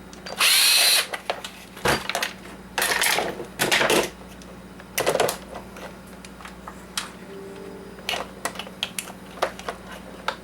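Clicks, knocks and scrapes of a plastic coffee-maker housing and its small parts being worked apart by hand, with a loud rasping scrape of about half a second near the start. A faint steady hum runs underneath.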